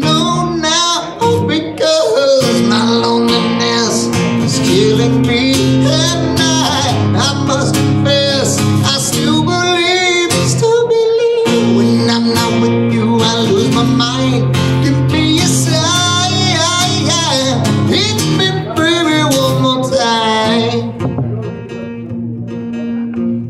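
A man singing live to a strummed acoustic guitar played through the PA. Near the end the voice drops out and the guitar carries on alone, a little quieter.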